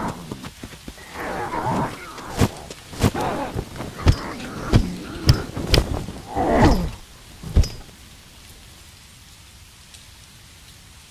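A scuffle: loud cries from a voice, with falling tones, mixed with about seven sharp thuds over the first eight seconds. After that only a low, even hiss remains.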